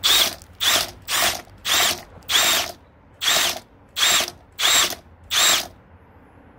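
Power drill driving a drain auger cable, pulsed in about nine short bursts roughly two-thirds of a second apart, each with a whine that rises and falls as the motor spins up and down. The cable is being worked down a roof vent to clear a blocked main sewer line.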